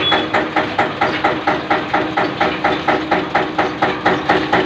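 Belt-driven beaten-rice (chura) mill machinery running: an even, fast knocking at several strokes a second over a steady hum.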